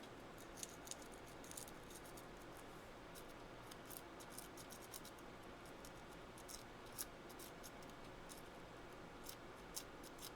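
Faint, short, irregular scratching strokes of fine sandpaper rubbing the tiny metal contacts of a rotary encoder to clean them, starting about half a second in.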